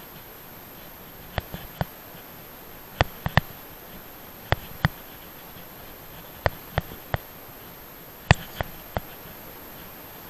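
Bicycle rolling along a tarmac road, heard from a handlebar-mounted camera: sharp clicks and knocks in small groups of two or three every second or two over a steady hiss, the loudest about eight seconds in.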